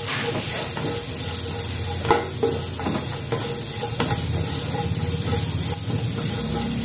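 Julienned carrots, chillies, shallots and garlic sizzling in oil in a wok over high heat, stirred with a spatula. The spatula scrapes and clinks against the pan a few times, most sharply about two and four seconds in.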